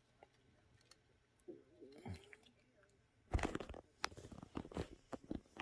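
Clicking, crunching and knocking of small screws and a hard drive being handled in a plastic hard drive cage, starting about three seconds in after a near-quiet stretch.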